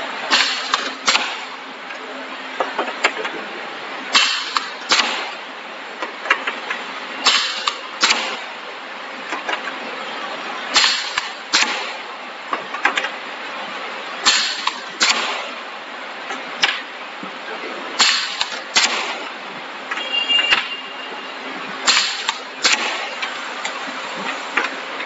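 Semi-automatic wrap-around labeling machine cycling as each tube is labelled: its pneumatic press comes down and lifts with two sharp bursts under a second apart, repeating about every three and a half seconds over a steady background hiss.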